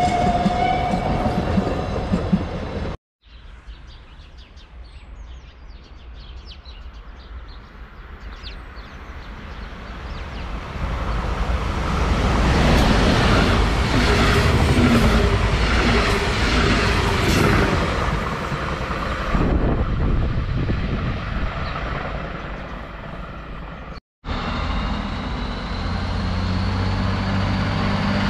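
A train of red double-deck coaches rolling past a platform: the rumble and wheel clatter build from faint to loud about ten seconds in, carry high wheel squeal at their peak, and ease off again. Before it come the last seconds of a narrow-gauge passenger train passing, and near the end, after a sudden cut, comes the steady hum of an approaching regional railcar.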